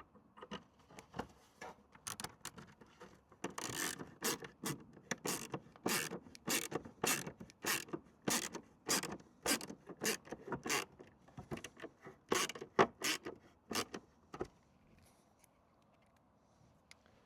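Plastic parts of a van's side-mirror housing being worked and fitted by hand: a long run of sharp scraping clicks, about two a second, that stops about fourteen seconds in.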